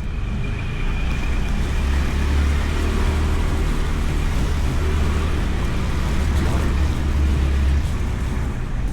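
Motorcycle riding noise picked up inside the rider's helmet: a steady low rumble of wind and engine with road noise over it.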